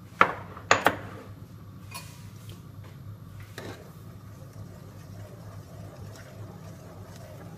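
Kitchen utensils clinking against a cooking pot: three sharp knocks within the first second, then two fainter taps, over a steady low hum.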